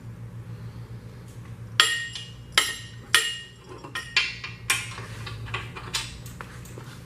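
Steel hand tools and engine parts clinking and knocking with a bright metallic ring, about eight sharp hits starting around two seconds in, as tools are readied to take the main bearing caps off a Mercury flathead V8. A faint steady low hum runs underneath.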